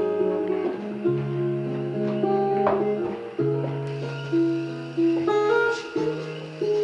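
Music: an acoustic guitar playing picked chords, new notes struck every second or two and left to ring.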